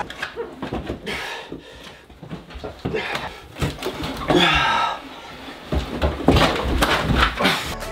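An old steel hot water tank being wrestled out of a cramped basement: irregular knocks, bumps and scrapes as it is lifted and shifted, with a man's grunts of effort.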